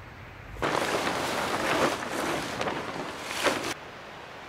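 Plastic tarp crinkling and rustling as it is handled and shaken out. It starts about half a second in and cuts off abruptly near the end.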